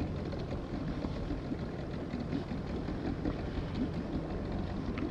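Steady low rumble of open-sea ambience around a small inflatable boat, with small scattered knocks and splashes.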